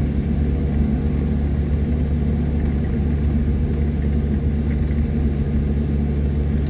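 A car engine running at a steady speed, with an even low hum.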